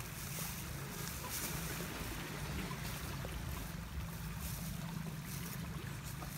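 Steady outdoor rushing noise with a low rumble underneath.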